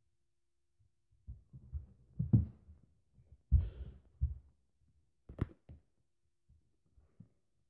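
A few dull, low thumps and rustles come in irregular clusters, with a sharper knock about five and a half seconds in.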